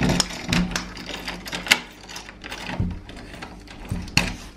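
Key working a door lock: a run of metallic clicks and rattles as it turns, with a sharper click just after four seconds in as the lever handle is pressed.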